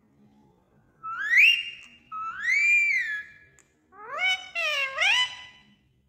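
Indian ringneck parrot giving three drawn-out whistled calls: the first rises and holds, the second rises and falls, and the third is lower, with a wavering pitch.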